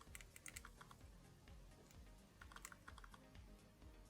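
Faint small clicks and ticks of a tool picking at cracked glass on an Apple Watch screen, in a few short clusters, with faint low background music underneath.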